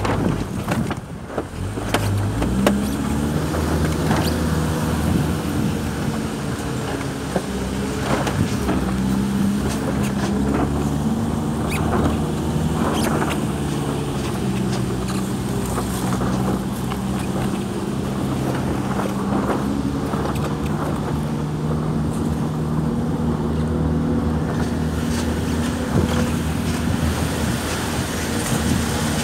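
An engine running steadily at a low, even pitch, coming in about two seconds in and holding with slight rises and falls. Scattered knocks from the phone being handled.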